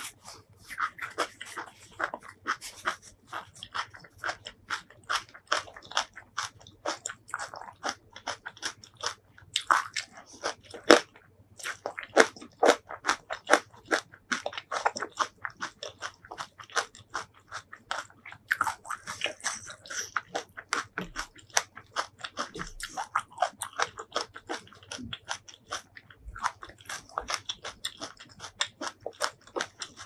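Close-miked crunchy chewing and biting of food, a rapid run of crisp crunches that keeps going with only a short lull about eleven seconds in.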